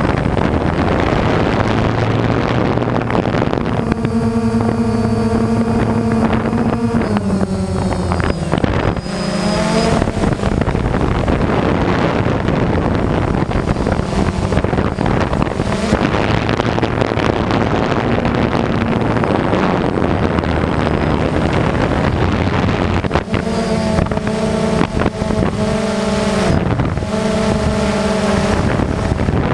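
Electric motors of an FPV remote-controlled model running hard, a whine that holds steady for stretches and then glides up and down in pitch, under heavy wind rush on the microphone.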